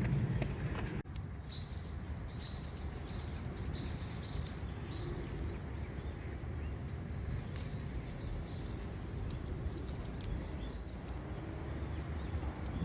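A wild bird calling a series of about seven short, high notes, roughly two a second, over a few seconds, against a steady low background rumble.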